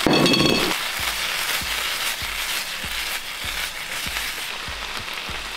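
Beef mince sizzling in a hot frying pan as a soy-honey sauce cooks into it and the pan is tossed, loudest in the first second.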